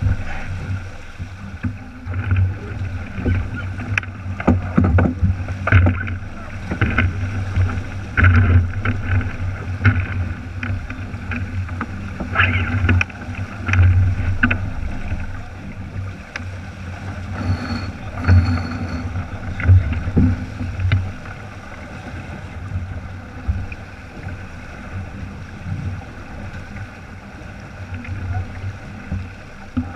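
Sailing keelboat under way and heeled: water rushing and slapping along the hull, with wind buffeting the microphone in repeated gusts that ease off in the last third.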